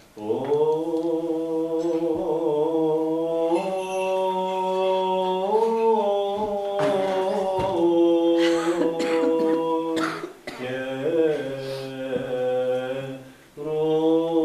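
Unaccompanied Eastern Orthodox liturgical chant sung by a small group of voices, in long held notes that move in steps. There are short breaks about ten and thirteen seconds in.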